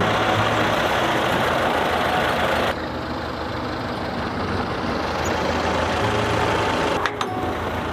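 Farm tractor engine running steadily with mechanical clatter. The sound changes abruptly once, about a third of the way in.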